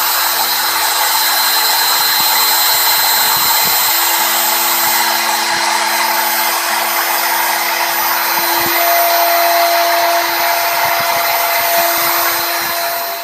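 Small CNC milling machine's spindle running at speed while its cutter mills a front panel: a steady high whine over a continuous cutting hiss, with a few faint knocks. A second, lower whine tone joins about two thirds of the way through.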